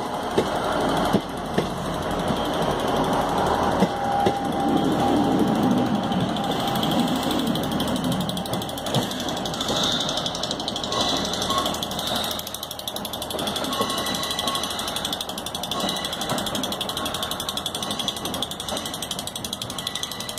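Diesel multiple-unit engines running, a steady mechanical clatter with a few sharp knocks in the first four seconds.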